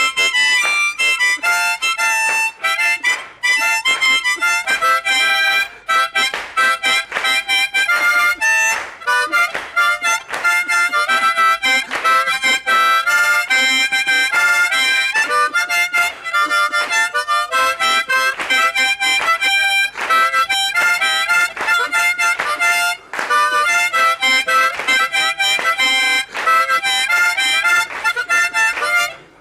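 Harmonica played solo: a lively tune of quick, short notes, often several reeds sounding together as chords, with brief pauses between phrases.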